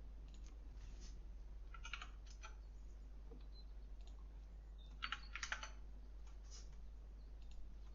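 Faint clicks and taps of a computer keyboard in short clusters, about two seconds in and again about five seconds in, over a low steady hum.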